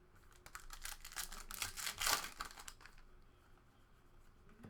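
Trading cards being handled and flicked through during a pack break, a dense run of crackling clicks that peaks about two seconds in.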